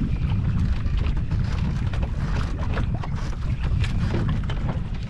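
Wind buffeting the microphone on a small boat at sea, a steady low rumble with scattered light clicks and water slaps over it.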